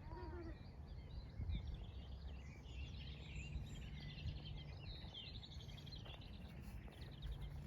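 Small birds chirping and trilling outdoors, with a fast trill about two thirds of the way in, over a steady low rumble.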